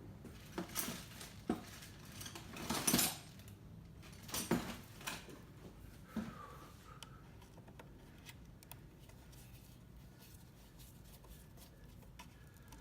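Small metal screws and a hand tool clicking and scraping as screws are worked out of a coffee roaster's front control panel. There is a cluster of clicks in the first half, the loudest a short rattle about three seconds in, followed by faint scattered ticks.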